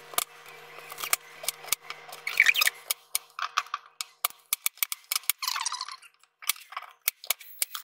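Kitchen knife chopping a peeled yam on a plastic cutting board: a quick, uneven run of sharp knocks as the blade meets the board, with two brief squeaks about two and a half and five and a half seconds in.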